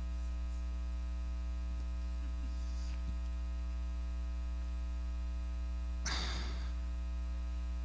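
Steady electrical mains hum with a stack of even overtones, a ground-loop buzz in the recording's audio chain; a brief faint rustle or breath about six seconds in.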